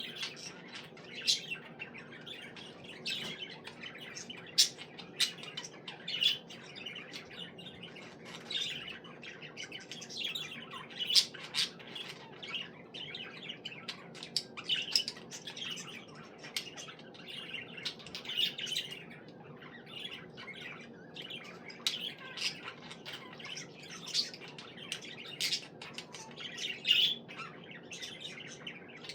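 Budgies chirping and chattering: an irregular, continuous run of short, sharp chirps and squawks.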